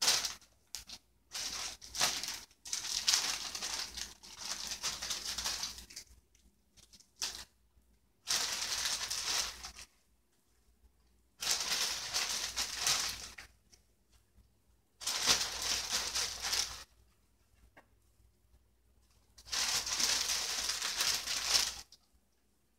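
Plastic salad bag crinkling in repeated bursts of one to three seconds, with quiet gaps between, as handfuls of spinach and lettuce are pulled out.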